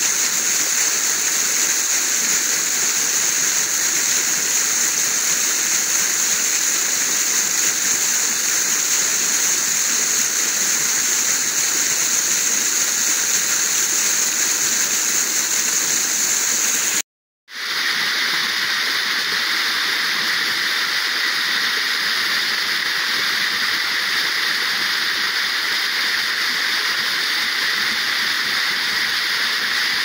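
Small waterfall pouring steadily down a rock face, a continuous loud rush of water. About 17 seconds in it cuts out for a moment and comes back as a second small cascade with a slightly lower rush.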